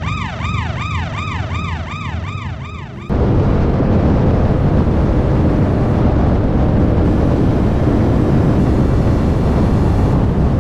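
A fast yelping siren sound effect that cuts off abruptly about three seconds in. After it comes a loud, steady roar of the 5th-gen Camaro SS's V8 running hard at highway speed, mixed with wind noise on the hood-mounted camera.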